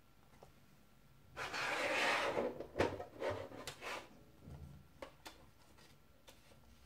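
Paper CD booklet sliding and rustling against a plastic jewel case for about a second. Several light clicks and taps of the plastic case follow as it is handled.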